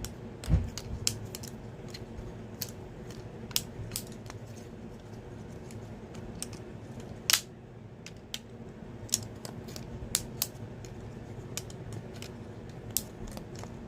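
Lego butterfly knife being flipped by hand: irregular clicks and clacks of the plastic brick handles and Technic-rod blade knocking together, with louder knocks about half a second in and again near seven seconds. A steady low hum runs underneath.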